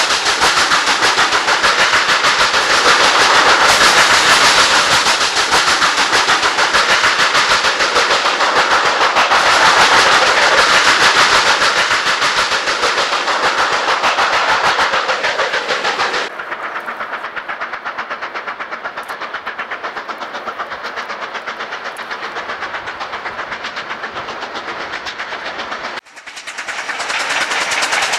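Steam locomotive running hard, a dense rapid beat of exhaust and running noise. About sixteen seconds in it drops abruptly to a quieter, duller version, and near the end it cuts out for a moment before coming back up.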